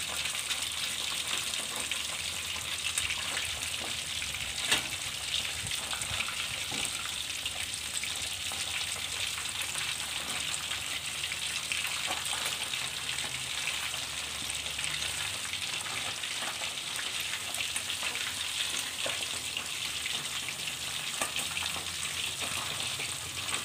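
Whole cá mè dinh fish shallow-frying in hot oil in a wok: a steady sizzle and crackle, the fish now cooking on their second side. A single sharp tick comes about five seconds in.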